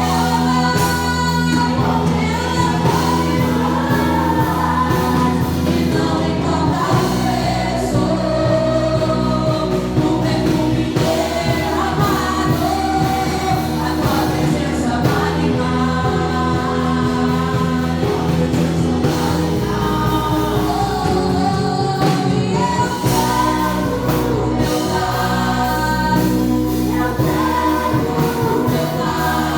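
Gospel worship song with singers over a band: steady bass, drum beat and sung melody.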